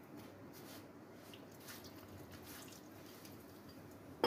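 Faint soft squishing and rustling of a hand working flour and water together into a dough in a plastic bowl, with a single sharp knock at the very end.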